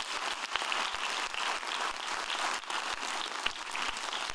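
Audience applauding, a dense clapping of many hands.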